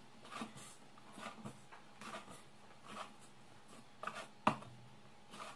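Yeast dough being kneaded by hand in a stainless steel bowl: soft rubbing and pressing strokes about once a second, with one sharper knock about four and a half seconds in.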